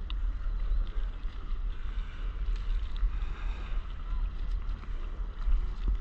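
Sea water lapping and splashing around a stand-up paddleboard, under a steady low rumble of wind on the microphone.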